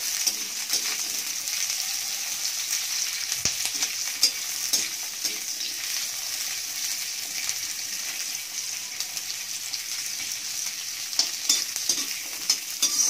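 Sliced onions sizzling in hot oil in a kadai, stirred continuously with a metal spatula that scrapes and clicks against the pan, the clicks coming more often near the end.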